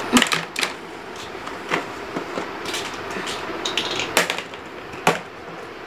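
Small plastic toy pieces clicking and knocking as a child handles them and packs them into a plastic basket and a zippered pouch: a few separate sharp knocks, the loudest just after the start, a little past four seconds and at about five seconds, over a steady hiss.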